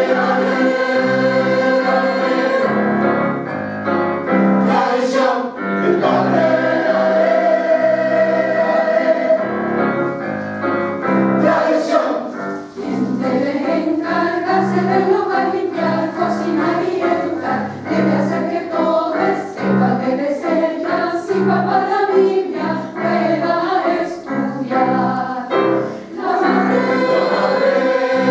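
Mixed choir of men's and women's voices singing in harmony, accompanied by piano, with a steady pulse of low notes underneath.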